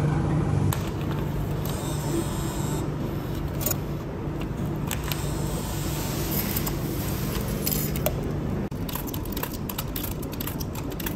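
Coins clinking and clicking as they are handled and fed into a coin-operated washing machine's slot. A run of sharp clicks comes in the last few seconds.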